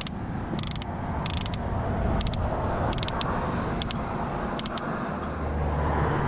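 Road traffic passing on the bridge: a steady rush of tyres and wind, with a vehicle's low engine hum coming up near the end. Short bursts of high clicking repeat roughly every three-quarters of a second through most of it.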